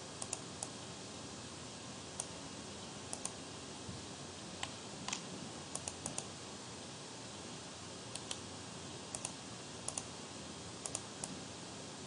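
Computer mouse buttons clicking: about twenty short, sharp clicks, mostly in quick pairs, over a steady faint hiss.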